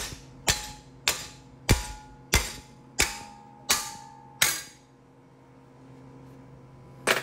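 Hammer blows on a laser-welded stainless steel joint, testing whether the weld holds. There are eight sharp metallic strikes with short ringing, about two-thirds of a second apart, then a pause and one more strike near the end.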